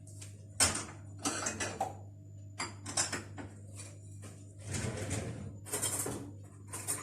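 A string of short, irregular scrapes and light clinks of a knife or utensils against a plate while cake is handled, over a steady low hum.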